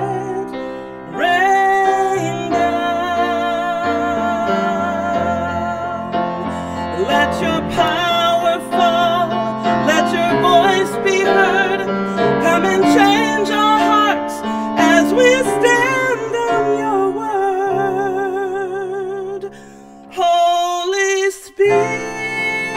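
A solo female voice singing a slow hymn with vibrato, accompanied by piano. Voice and piano drop away for a moment near the end, then the singing resumes.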